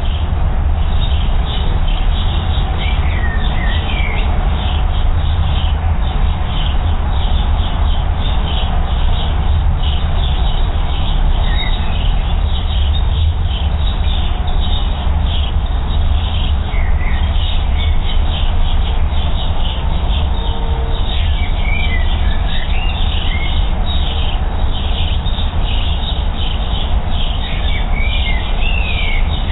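Wild birds chirping and calling, short rising and falling chirps scattered through, over a steady low rumble.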